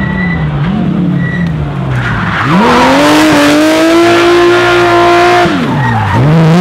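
Air-cooled flat-six of a Porsche 911 rally car: the engine note falls as the car slows into a hairpin, then about two and a half seconds in it revs up sharply and holds high for around three seconds while the rear tyres spin and squeal. Near the end the revs drop away and begin to climb again.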